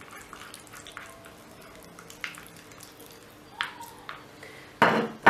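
Wooden spatula stirring a soft egg-yolk and mayonnaise filling in a ceramic bowl: quiet soft scraping with a few light taps, and a louder knock near the end.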